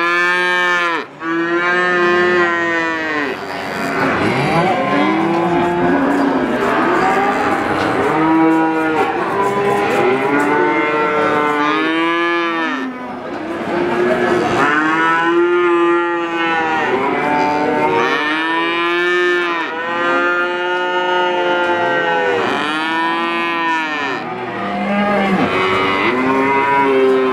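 Calves mooing one call after another, several at once with their calls overlapping at different pitches.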